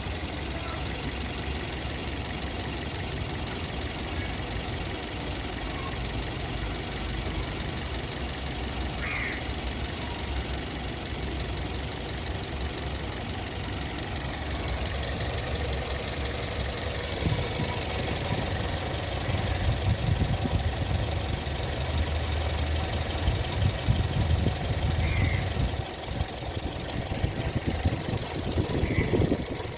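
Toyota Corolla engine idling steadily. It grows louder and more uneven past the halfway point, with irregular peaks.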